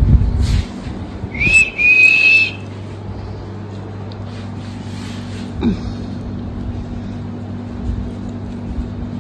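A short, high whistle lasting about a second, rising briefly at its start, over a steady low hum; a few low knocks just before it.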